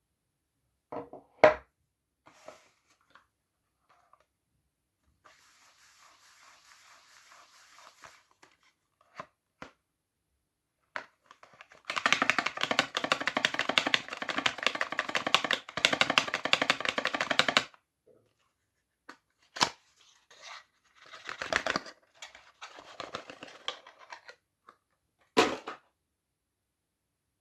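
Soap bars being unwrapped: packaging torn open and crinkled, loudest in one long stretch of dense crackling in the middle, with quieter rustling before and after and a few sharp taps.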